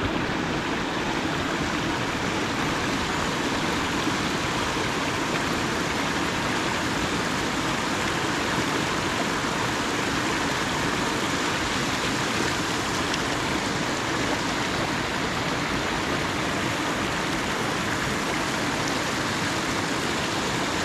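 Steady rush of river water spilling through a gap between rocks at close range, an even hiss and roar with no breaks.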